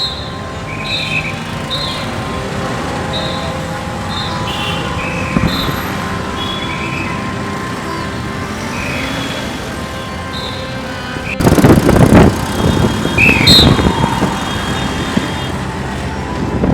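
Street ambience with vehicle traffic and short high chirps repeating about once a second. About two-thirds of the way through it cuts abruptly to a much louder, gusty rumble of traffic.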